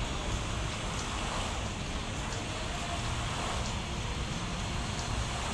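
Fountain water jets spraying and splashing into the pool, an even hiss, over a steady low rumble of road traffic.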